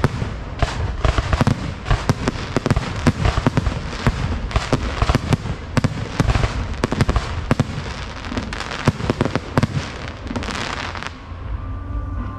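Aerial fireworks in a dense barrage: rapid overlapping shell bursts, launch thumps and crackling stars with hardly a gap. It cuts off abruptly about eleven seconds in, and music starts.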